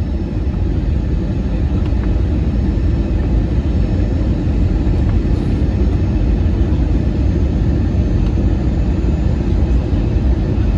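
Steady, loud, low vehicle rumble with no breaks or distinct events.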